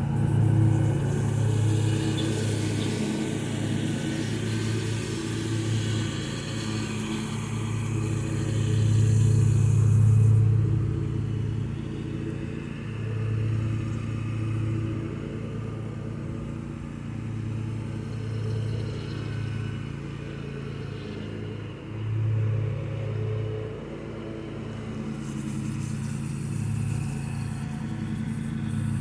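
Zero-turn riding lawn mower's engine running steadily while mowing, growing louder and fainter as the mower moves nearer and away, loudest about nine seconds in.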